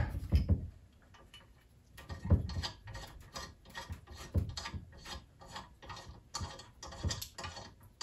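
Park Tool TS-4.2 truing stand handled and adjusted by hand: irregular clicks, knocks and rubbing of its metal parts. It is quiet for about a second near the start, then the knocks come about one or two a second.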